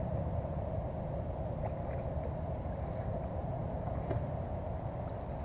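Steady low rumble of wind noise on the microphone, with a few faint splashes and ticks as a hooked bass is drawn alongside a kayak and grabbed from the water.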